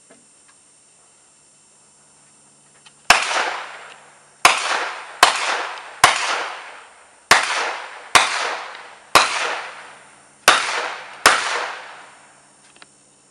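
A rifle fired nine times in quick succession, roughly a shot a second at an uneven pace. Each sharp report is followed by an echo that dies away.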